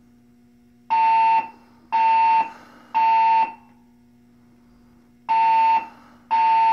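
Hotel fire alarm evacuation system sounding its alarm tone over the building speakers in the temporal-three pattern: three half-second tones a second apart, a pause of about two seconds, then the next group starting near the end. The three-pulse pattern is the standard signal to evacuate the building.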